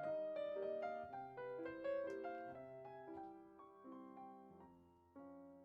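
Soft background piano music: a gentle melody over sustained chords.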